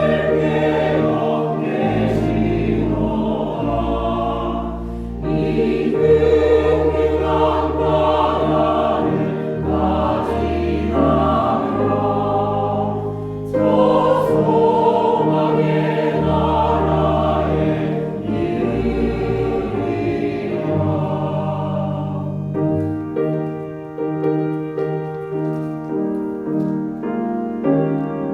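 Church choir singing a Korean hymn in parts, with organ and piano accompaniment and sustained low organ tones underneath. About 22 seconds in, the voices stop and the piano carries on alone with an interlude.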